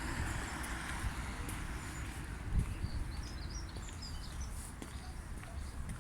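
Small birds chirping in short, high calls from about two and a half seconds in, over a steady low rumble.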